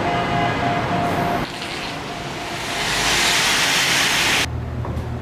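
Vehicle assembly plant noise. A steady hum with a repeating beeping tone changes about a second and a half in to a hiss that swells and then cuts off sharply, leaving a low steady hum.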